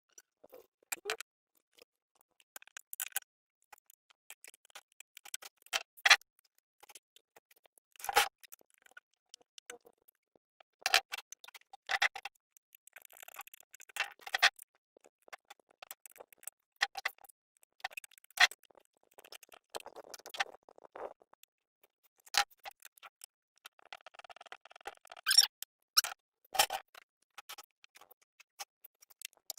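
Scattered light clicks and knocks of hand tools and parts being handled, coming at irregular intervals.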